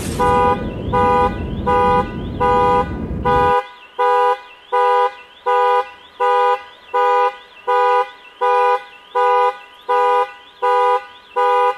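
Car alarm sounding the horn in a steady repeating pattern, about three honks every two seconds, set off by the car being smashed. A low noise runs underneath and cuts off suddenly about three and a half seconds in.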